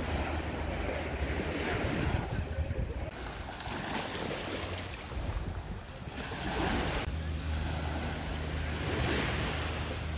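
Small waves washing onto a sandy shore in slow swells, with wind buffeting the microphone and a steady low rumble underneath.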